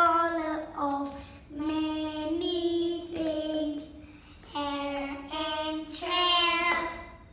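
Young children singing a simple song without accompaniment, in short held phrases with brief pauses between them.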